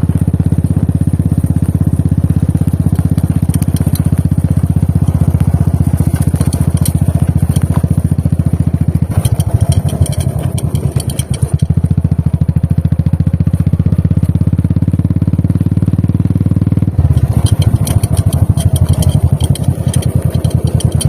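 Royal Enfield Classic 350's single-cylinder engine running under way in an even, fast beat. The beat loosens and dips about nine seconds in, then picks up again, with scattered crackles and rattles over it.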